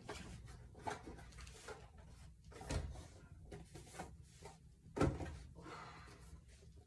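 Toiletry boxes and bottles being handled and set onto wire closet shelves: scattered light knocks and packaging rustles, the loudest knock about five seconds in.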